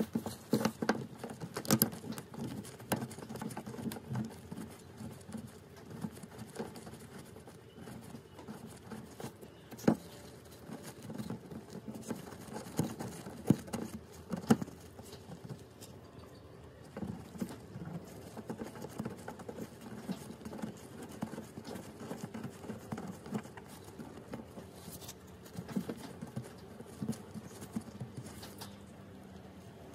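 Irregular small clicks, knocks and scraping of hands working with tools and car parts, with a few sharper knocks about ten and fourteen seconds in.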